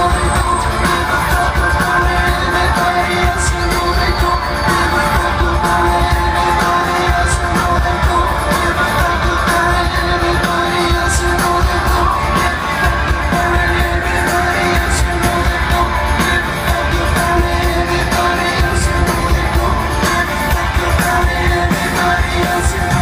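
Live rock band playing loudly through a stadium PA, heard from within the audience, with singing and shouts from the crowd over the music.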